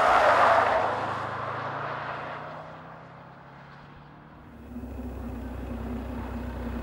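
Subaru WRX STI driving past at speed: a rush of engine and tyre noise that swells in the first second, with the engine note dropping slightly in pitch as it fades away. From about four and a half seconds in, a steady low engine drone builds and holds.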